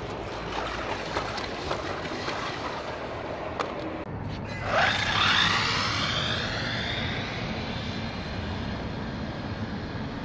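Wltoys 12628 6x6 RC car driving, its 540 DC motor and drivetrain running under a steady rushing noise. About five seconds in, the motor whine rises sharply as the car accelerates, then slowly fades away.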